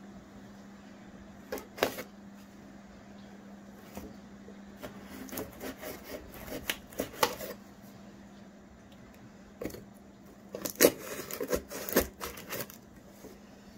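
A scissor blade slitting clear packing tape along a cardboard shipping box, in three spells of scraping and sharp clicks against the cardboard.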